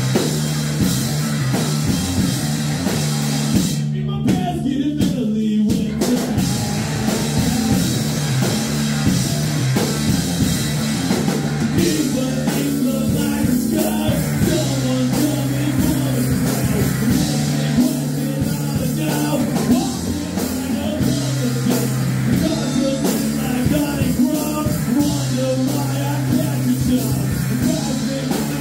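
Live rock band playing loudly: electric guitar, electric bass and drum kit, with a bass line moving between held notes. The cymbals and high end drop away for about two seconds around four seconds in, then the full band carries on.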